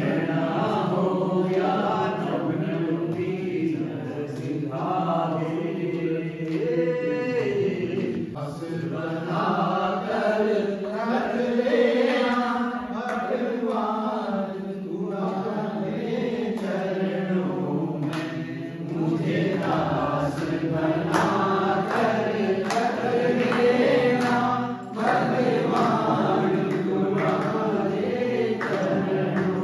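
A group of people singing a campfire song together, with hands clapping along to the beat.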